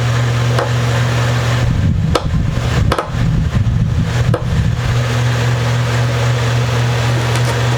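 A steady low hum throughout, with a stretch of small clicks and knocks from about two to five seconds in: a screwdriver working a pickguard screw on a guitar.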